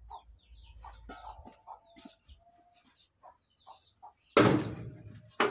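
Chickens clucking, with a few short falling bird chirps. About four seconds in, a loud thump with a short ringing tail as a steel LPG gas cylinder is set down on the vehicle floor, and another sharp knock near the end.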